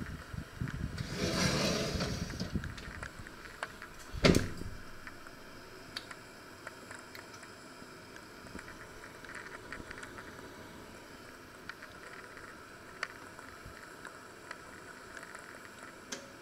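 An oven rack with a heavy cast-iron pot on a wooden board scrapes as it is slid in, then the oven door shuts with a loud bang about four seconds in. After that come a few faint clicks as the oven dial is turned and the timer buttons are pressed.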